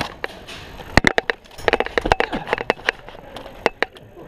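Airsoft gas guns firing on semi-auto: an irregular string of sharp shots, some in quick succession and several very loud.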